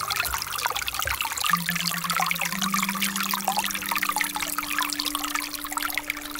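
Shallow forest creek trickling and babbling over rocks and fallen leaves, a steady, busy splashing.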